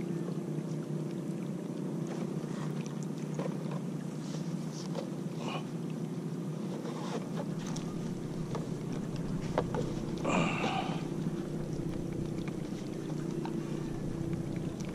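Steady low drone of a distant boat engine, with scattered small clicks and knocks close by and a brief rustling scrape about ten seconds in. Low wind rumble on the microphone grows in the second half.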